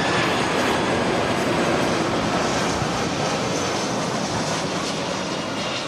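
Steady jet noise from an Airbus A340 airliner's four engines as it passes low on landing approach, slowly fading.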